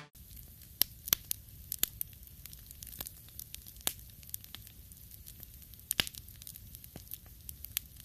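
Wood campfire burning, crackling with irregular sharp pops and snaps over a faint low steady background.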